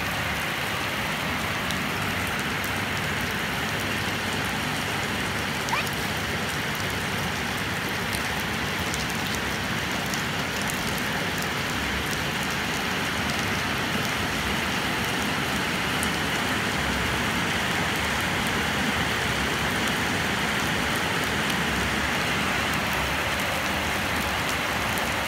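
Steady rain falling on the ground and concrete, an even hiss with scattered drop taps throughout.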